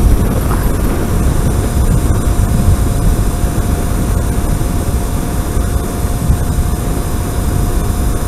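Wind rushing hard over the microphone of an electric-converted 1975 Kawasaki KZ400 moving at road speed, with a faint steady whine from its electric drive motor underneath.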